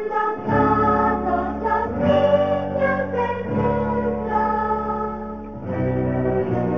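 Slow music with sustained chords over a low bass that moves to a new note about every one and a half to two seconds, with a melody line above.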